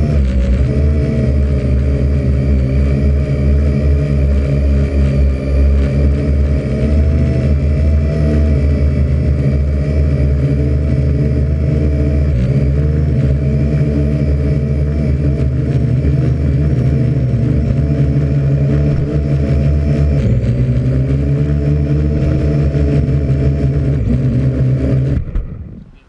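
Parrot AR.Drone 2.0 quadcopter's four motors and propellers running in flight, a loud steady hum heard from on board, its pitch shifting slightly as the drone manoeuvres. Near the end the motors cut off suddenly as the drone lands.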